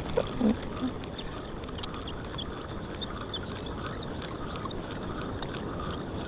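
Steady wash of ocean surf, with scattered faint, short high chirps over it.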